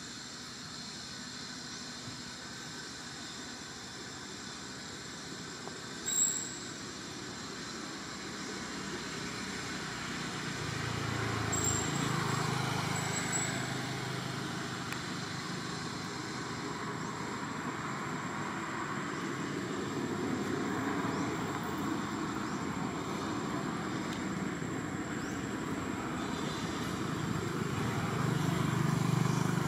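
Motor vehicle engine noise in the background, a low hum that swells twice, with one sharp click about six seconds in.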